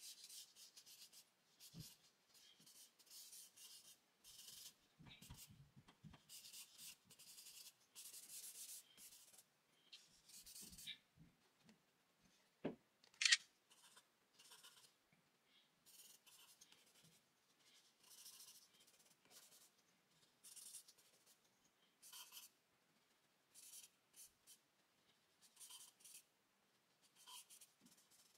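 Faint scratching and rubbing of a charcoal stick across drawing paper in many short strokes. A single sharp click stands out about thirteen seconds in.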